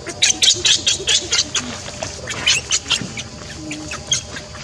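Baby monkey squealing: rapid, shrill squeaks, several a second, coming in bursts with short breaks.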